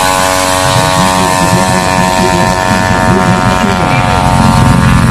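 Drag-tuned 200cc automatic scooter engine at full throttle down the strip, holding a steady high pitch over a low rumble. It cuts off abruptly near the end.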